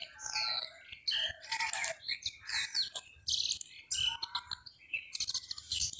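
Birds chirping and twittering: many short, quick calls overlapping one another.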